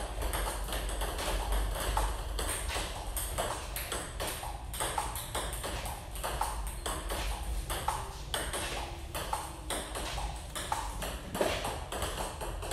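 Table tennis rally: the ball clicking off the bats and bouncing on the table in a quick, steady run of light knocks.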